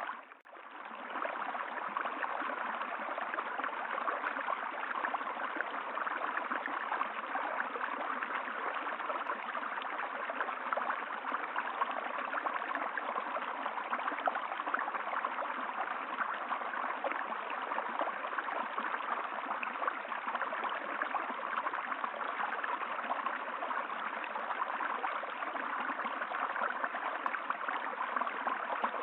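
Steady rushing of flowing water, like a stream, dropping out briefly at the very start and then running on evenly.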